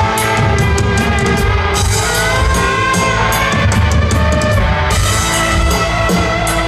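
Live rock band playing an instrumental passage: drum kit and electric guitars, with a guitar line holding and bending notes over the beat, heard as a loud concert recording.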